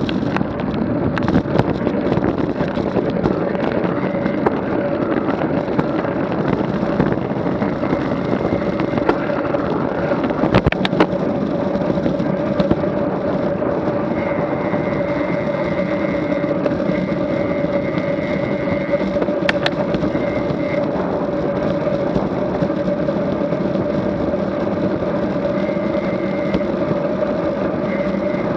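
A bike in motion at a steady speed: a constant hum that holds one pitch the whole time, with a few sharp clicks or knocks scattered through it.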